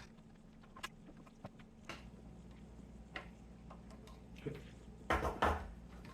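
Small plastic clicks and taps from hands fitting a replacement rubber drive belt onto the pulleys of a DVD drive's tray mechanism, a few scattered clicks then a louder quick cluster of them near the end.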